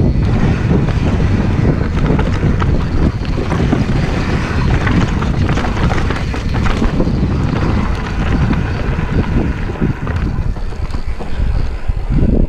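Wind buffeting the camera microphone over the rumble and rattle of a mountain bike descending a rough downhill trail at speed, with many small knocks from the tyres and frame.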